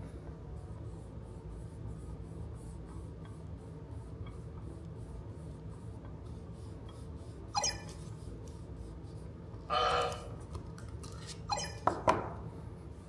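A steady low hum, then the EMO desktop robot gives a short electronic chirp about ten seconds in, followed by a few sharp clicks.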